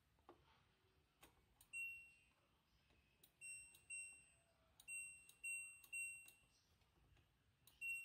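LG front-loading washing machine's control panel beeping as its program dial is turned with the key sound on: seven short, high beeps, irregularly spaced, with faint clicks between them.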